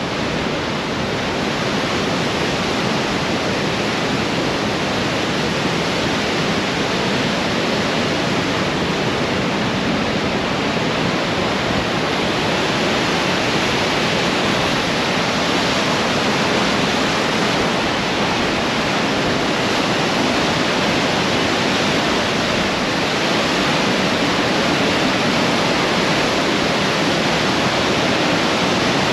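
The Great Falls of the Androscoggin River running high, churning whitewater making a loud, steady rush of water that grows gradually a little louder.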